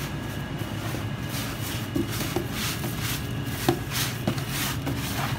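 Gloved hands tossing seasoned cubes of raw beef in a plastic tub: soft slaps and rustles, with a few sharp knocks against the tub in the middle, over a steady low hum.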